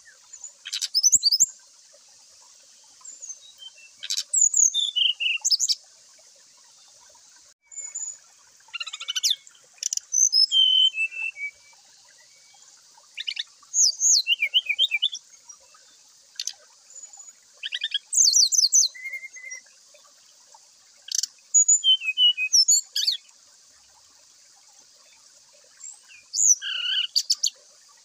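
Brown-chested jungle flycatcher (sikatan rimba dada coklat) singing in the loud, open 'ngeplong' style: short phrases of clear whistles and quick chattering trills, one every second or two with pauses between.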